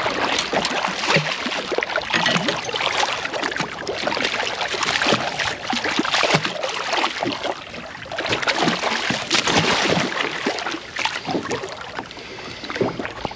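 Water splashing and slapping against a small boat's hull, with many short knocks and rattles of handling aboard and wind on the microphone.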